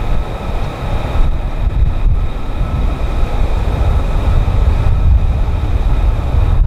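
F-35B's single F135 jet engine running: a steady, loud rumble with a high, steady whine over it, growing slightly louder.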